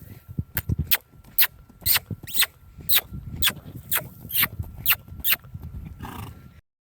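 Horse hooves striking hard ground at a jog (a two-beat trot): sharp, regular clicks about two a second, until the sound cuts off just before the end.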